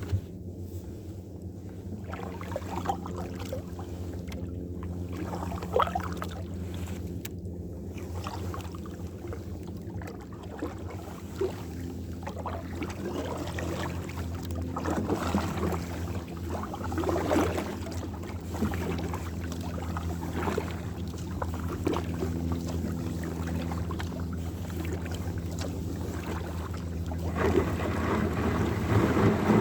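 Kayak paddle dipping and splashing in lake water in irregular strokes, over a steady low hum, growing louder near the end.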